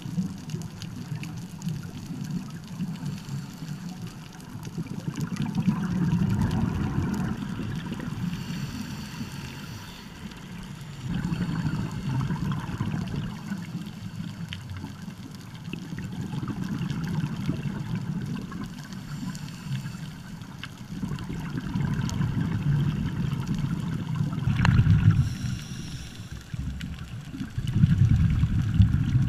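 Scuba diver breathing underwater through a regulator: exhaled bubbles gurgle in a low, muffled rush that swells and fades every few seconds, heard through a waterproof camera housing.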